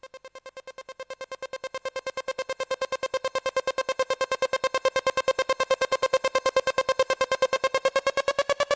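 Electronic background music: a single synth note pulsing about nine times a second, fading in and growing louder, its pitch beginning to rise near the end.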